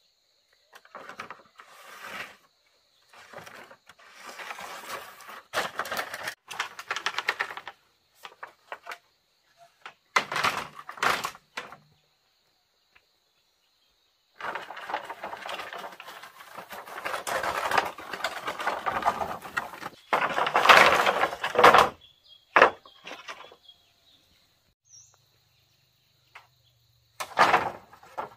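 Repeated bursts of rustling and crackling, each one to three seconds long, with short silences between them. A faint, steady high whine comes and goes behind them.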